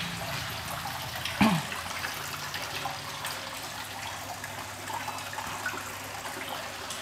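Soft fizzing and faint crackle of soapy foam on water in a plastic basin, over a low steady hum. About a second and a half in there is one short, louder sound that slides down in pitch.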